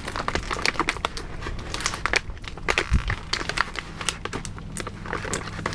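Plastic toy packaging crinkling and crackling as it is handled, with many small irregular clicks and one dull knock about three seconds in.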